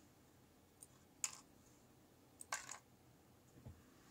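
Tweezers taking tiny pin tumblers out of a Keso 2000S lock's pin bar and dropping them one by one onto a folded paper sorting tray: a few short clicks, about a second apart.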